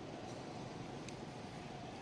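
Steady low rumbling background noise outdoors, with a faint steady tone and one brief faint click about a second in.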